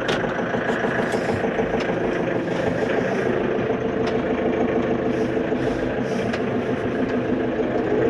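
Tractor diesel engine running steadily, heard from inside the cab.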